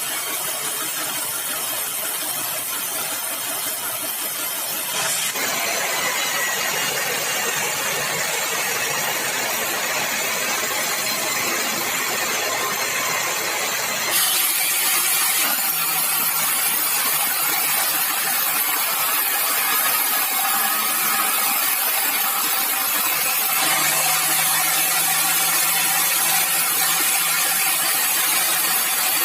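Sawmill machinery running steadily, engine and saw noise without a break. The sound changes abruptly twice, about five and about fourteen seconds in.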